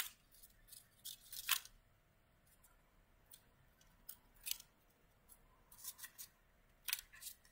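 Paper rustling and crackling in short, faint bursts as fingers press small cut strips of paper into the glued centre of a paper flower.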